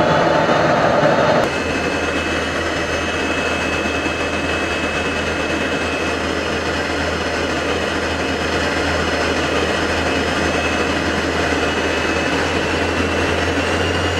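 Jet engine running steadily: a continuous rush with a low hum and a thin, steady high whine. The sound changes abruptly about a second and a half in, then holds steady.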